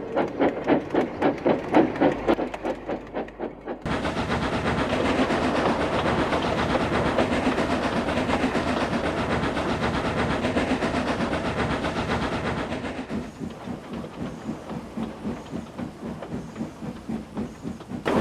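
Steam locomotive running, its exhaust chuffing in a steady beat. About four seconds in the sound changes abruptly to a louder, steady train running noise with little beat. Around thirteen seconds in it drops back to quieter, regular chuffing.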